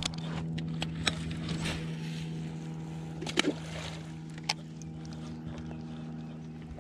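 Bass boat's electric trolling motor humming steadily, with a few sharp clicks over it, the loudest about three and a half seconds in.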